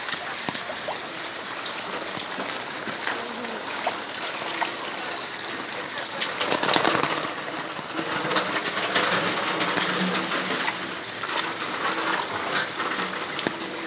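Heavy rain pouring onto a flooded street, splashing steadily into the standing floodwater, heaviest about halfway through.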